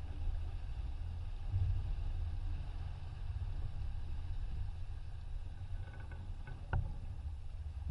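Wind buffeting the microphone of a sailing yacht's onboard camera, a steady low rumble, with the rush of the boat through the water underneath. A single sharp knock comes near the end.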